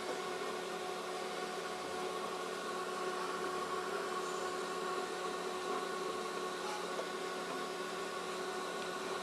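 Steady mechanical hum with several faint held tones.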